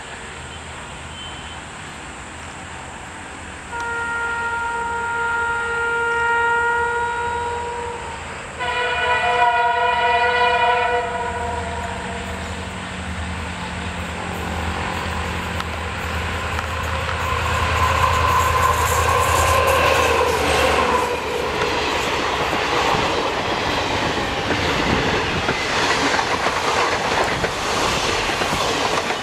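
WDP4 diesel-electric locomotive sounding its twin-tone horn: one long blast of about four seconds, then a second blast of about two seconds on a different tone. The locomotive's two-stroke engine then rumbles past, followed by the clickety-clack of the coaches' wheels running by.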